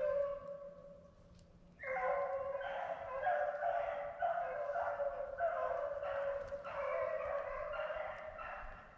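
Beagles baying: one drawn-out bay at the start that fades within a second, then from about two seconds in a near-unbroken string of long bays, each half a second to a second long. This is typical of hounds giving tongue as they run a rabbit's scent.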